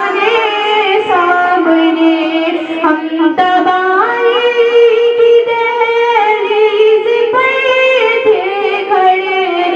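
A female voice singing a naat, an Urdu devotional song in praise of the Prophet, in a melismatic style, with one long held note in the middle.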